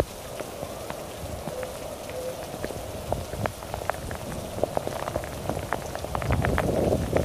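Heavy rain falling steadily, with many scattered close drops ticking, growing louder about six seconds in.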